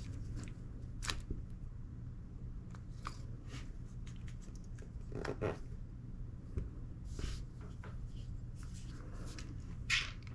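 Scattered small clicks and rustles of parts being handled: an airsoft gas blowback rifle's bolt carrier and nozzle spring worked by hand, over a steady low hum.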